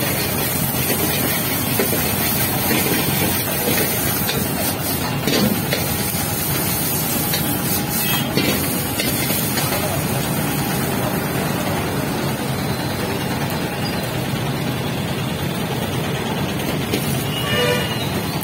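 A commercial gas burner running steadily under a wok, with a steel ladle scraping and knocking against the wok as noodles are stir-fried; a few sharper clanks come about four to eight seconds in.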